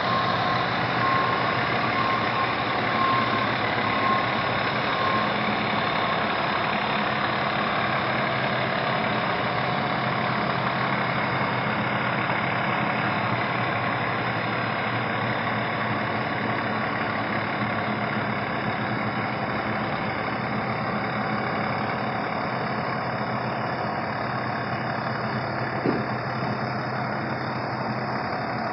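Diesel engine of a tiller ladder fire truck idling steadily. A repeating short beep sounds over it in the first few seconds.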